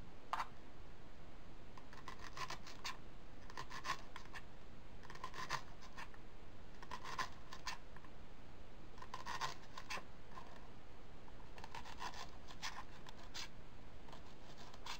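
Kitchen knife slicing a leek into thin rings on a plastic cutting board: groups of quick cuts, each ending in a tap of the blade on the board, every second or two.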